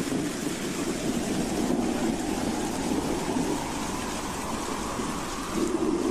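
Howling wind: a steady rushing noise with a faint whistling tone that sinks a little in pitch, then rises and grows louder near the end.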